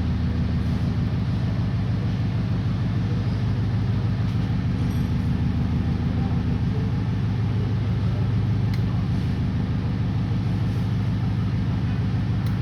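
Steady, loud low machine hum with a fine even pulse, unchanging throughout.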